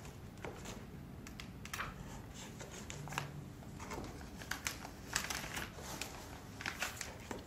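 Clear plastic zip-top bag crinkling and rustling as hands handle it and reach inside, with irregular short crackles.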